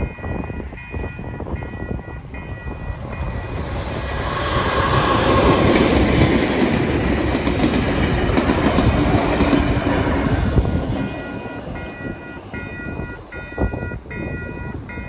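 A 44 class Alco diesel-electric locomotive hauling passenger carriages passes close by. The engine and wheel rumble with clickety-clack build up, peak in the middle and fade away. An evenly repeating electronic level crossing bell is heard at the start and again through the last few seconds.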